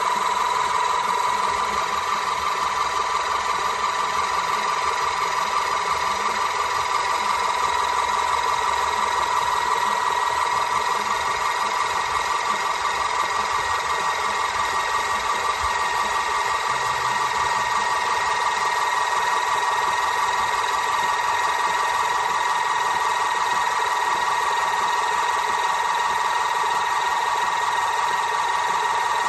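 The motor-driven hydraulic pump of a 12V electric car jack running continuously, a steady high-pitched whine.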